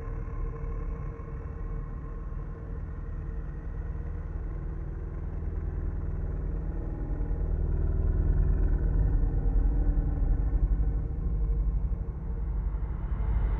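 Dark ambient drone: a deep, steady low rumble with faint held tones above it, swelling louder about two-thirds of the way in and turning brighter right at the end.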